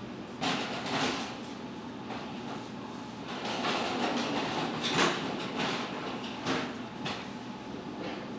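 Bakery kitchen work noise: a steady background hum with a series of short scrapes and knocks, the loudest about five seconds in.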